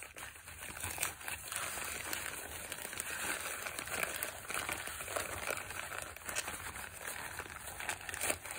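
Clear plastic zip-top bag crinkling and rustling as wet cement is kneaded and squished inside it by hand, a continuous irregular rustle.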